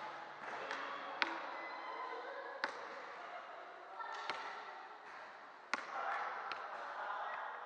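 Basketball bouncing on an indoor court: a handful of sharp, irregularly spaced bounces that echo in the large hall, over a background murmur of players' voices.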